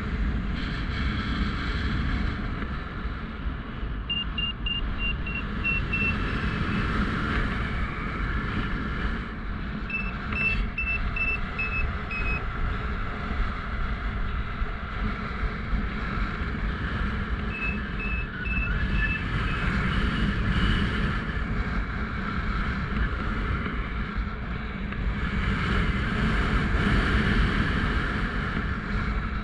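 Strong wind rushing over the microphone in flight, with a paragliding variometer beeping in several short runs of quick high beeps, each run dropping slightly in pitch; the beeping signals that the glider is climbing in lift.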